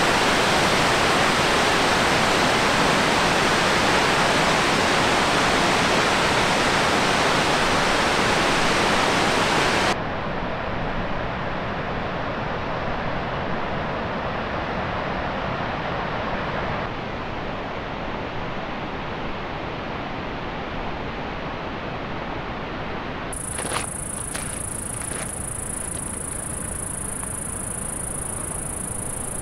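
Steady rush of fast-flowing water, loud for the first ten seconds and then abruptly quieter, dropping again around seventeen seconds. Near the end a steady high-pitched insect buzz comes in, with a few clicks.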